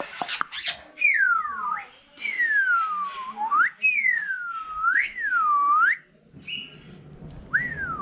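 African grey parrot whistling: about five clear swooping whistles, each sliding down in pitch and then sharply back up, after a few short clicks at the start.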